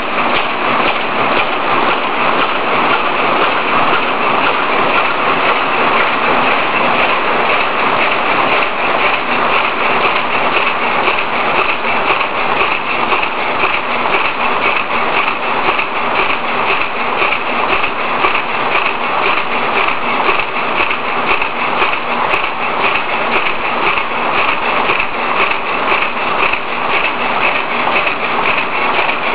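Plastic bag-making machine with a flat stacker running steadily at production speed: a loud, even, rapid clatter.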